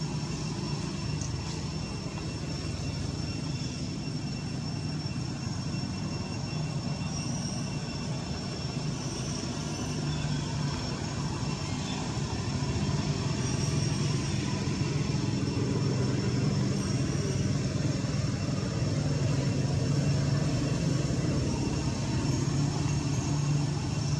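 A motor vehicle's engine running steadily: a low rumble that grows a little louder about halfway through, over a faint steady high whine.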